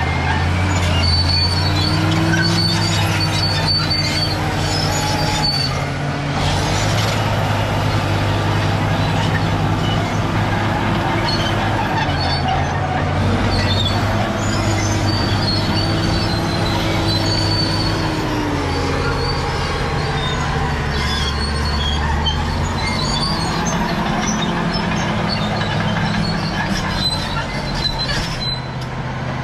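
Caterpillar D7G bulldozer's diesel engine working under load, its pitch rising and falling several times, with short high-pitched squeaks coming and going over it, typical of the steel tracks and running gear.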